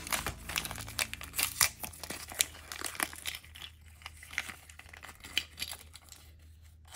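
Small printed wrapper around a Mini Brands miniature being torn open and crumpled by hand: an irregular run of crinkles and rips, busiest in the first few seconds.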